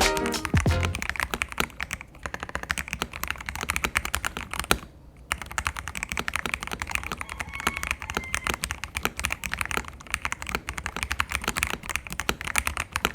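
Typing on a Royal Kludge RK68 mechanical keyboard, modded with dampeners: a fast, continuous run of keystroke clacks, with a short pause about five seconds in.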